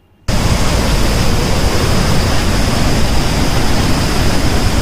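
Devi's Fall waterfall roaring: a loud, steady rush of falling water that cuts in abruptly just after the start.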